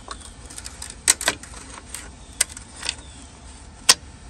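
Sharp clicks and knocks of a car's headlight bezel being handled and fitted, its tabs going into their slots; about five strong knocks among lighter ticks, the loudest near the end.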